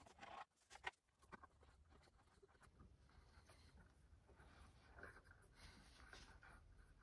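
Near silence, with a few faint clicks and light handling noises within the first second and a half as small screws are set into a steel C-channel on the wooden tabletop.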